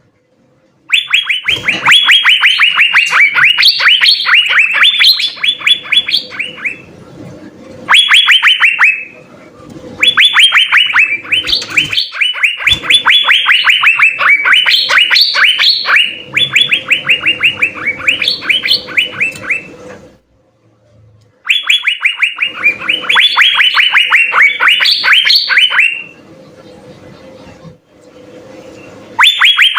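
Asian fairy-bluebirds (cucak biru) singing loudly in long runs of rapid, sharply falling notes, several a second, broken by brief pauses. A faint steady hum shows in the pauses.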